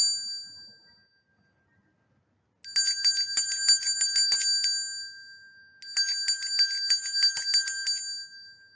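A bell ringing in rapid trills of repeated strikes: a ring dies away in the first second, then two long rings of about three seconds each follow after a short gap.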